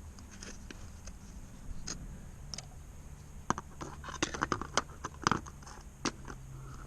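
Hands working with plastic pool-return fittings and glue: scattered light clicks, taps and scrapes, with a cluster of sharper clicks between about three and a half and five and a half seconds in.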